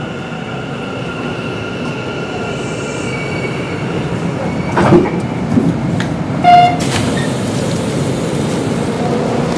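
Hanshin 1000 series electric train running on the rails as it nears its next stop, the steady whine of its Mitsubishi IGBT-VVVF traction inverter over the rumble of the wheels. Brief high squeals about five and six and a half seconds in, the second one the loudest.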